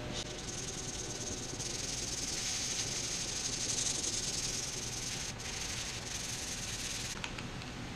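Sandpaper, 180 grit, rubbed by hand in small circles over body filler on a van's sheet-metal roof: a steady scratchy hiss, a little louder in the middle.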